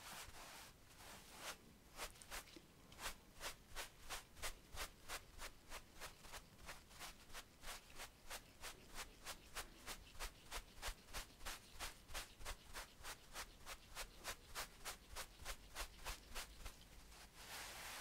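Bristles of two wide paintbrushes brushing over the skin of a neck close to a microphone. A few slower sweeps give way to quick, even strokes about three or four a second, with a longer sweep again near the end.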